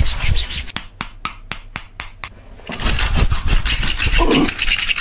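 Barber's hands working over a client in a rough massage: a quick run of slaps, about five or six a second, then rough rubbing. A short voice sound comes near the end.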